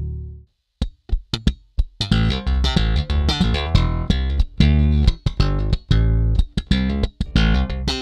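Electric bass guitar with a standard Fender-style bridge played slap style. A few isolated slapped notes are followed, from about two seconds in, by a busy run of slapped and popped notes. In the first half second a held fingerstyle chord from the other bass sample is cut off.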